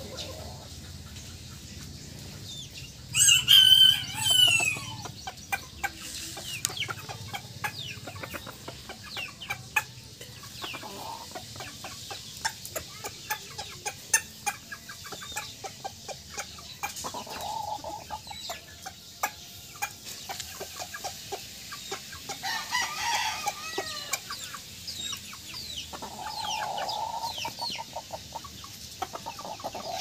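A rooster crows once, loudly, about three seconds in. Chickens cluck now and then through the rest, over many short ticks.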